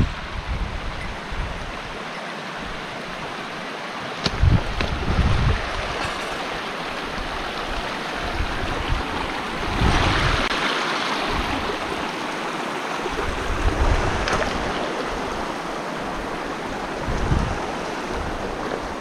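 Rushing of a mountain stream, a steady wash of water that swells briefly about halfway through, with wind gusting on the microphone in low rumbles and a few light clicks.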